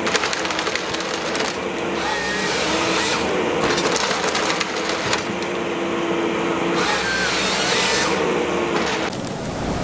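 Compact forestry harvester at work: a steady machine whine that holds and glides in pitch in short stretches, with wood cracking and snapping about a second in and again around the middle.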